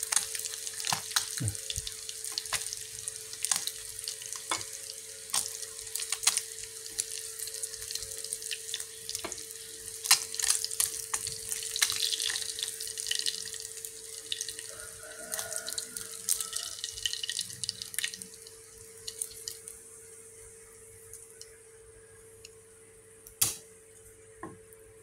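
Small catfish (cá chốt) frying in a pan of hot oil: a steady sizzle with frequent crackles and pops as the fish are turned and lifted out with chopsticks. The sizzling dies down over the last several seconds as the pan empties, and a single sharp click sounds near the end.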